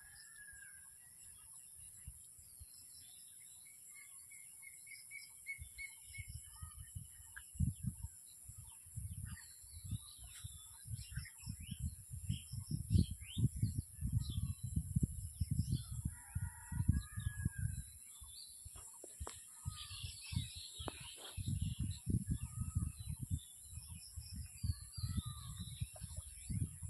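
Small birds chirping and calling, over a steady high hiss. From about a quarter of the way in, frequent irregular low thumps and rumbles are the loudest sounds.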